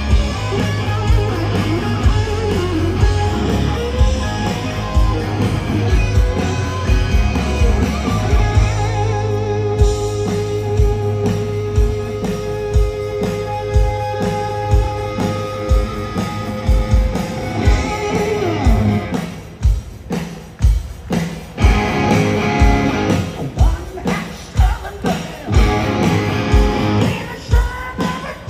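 Live hard-rock band at full volume: a lead electric guitar solo with long held notes over a steady drum beat and bass. About two-thirds of the way through the band drops back to sparse drum hits, then comes back in full, with singing near the end.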